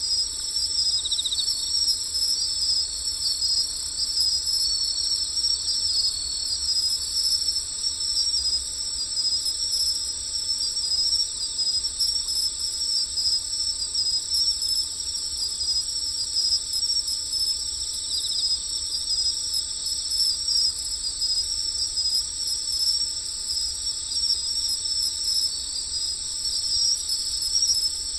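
Steady chorus of insects, a high continuous trilling that runs without a break.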